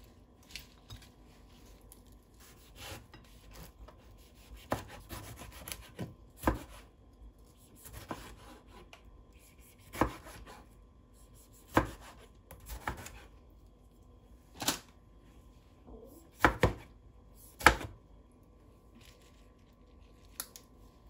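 Ceramic kitchen knife slicing tomatoes on a cutting board: separate sharp knocks of the blade hitting the board, about one every second or two, some in quick pairs. Soft rustling of lettuce leaves being handled at the start.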